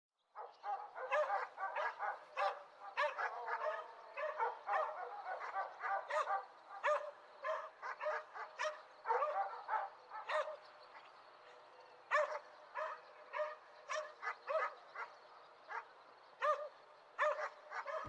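Dogs barking over and over, closely packed and overlapping through the first half, thinning to single barks from about ten seconds in.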